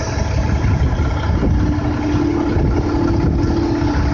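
Kobelco 135SR excavator's diesel engine and hydraulics running steadily under load as it swings a bucket of fill dirt over a dump truck, with a low rumble and a steady hum that grows louder about a second and a half in.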